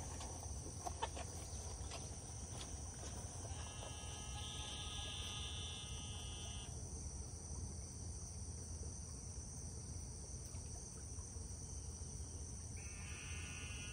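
Steady high-pitched chorus of crickets and other insects. Twice, a few seconds in and again near the end, a long, even, pitched drone of about three seconds joins it.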